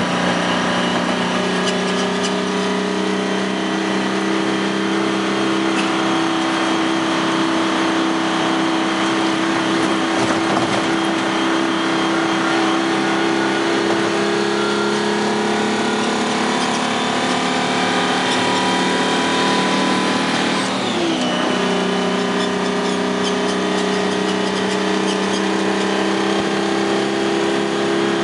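GM 6V53 Detroit Diesel two-stroke V6 running under load, heard from inside the truck cab while driving, with a steady engine note. About three-quarters of the way through, the note drops sharply for a moment and then settles again, as in a gear change.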